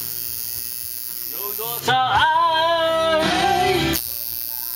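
A Mandarin pop ballad is playing, with a voice singing from about two seconds in. Under it runs a steady low electric buzz from a coil tattoo machine at work.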